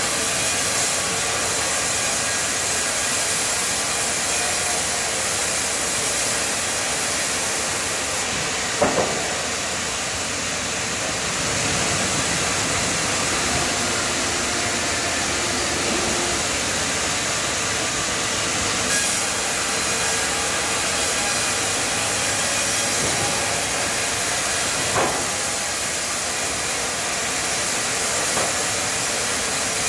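Large sawmill band saw cutting a Japanese cypress (hinoki) cant as the log carriage feeds it through, a loud steady hiss of blade and machinery. Two sharp knocks stand out, about nine seconds in and again about 25 seconds in.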